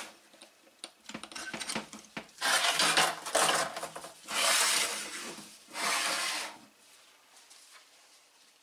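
Handling of metal tools and parts on a workbench: a few light clinks, then three longer scraping, rubbing rustles about two and a half, four and a half and six seconds in.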